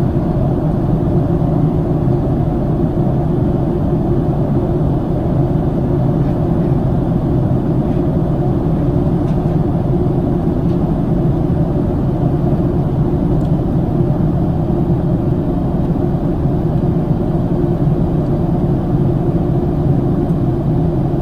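Steady low rumble inside the cabin of a Boeing 737-700 taxiing after landing, its engines at idle.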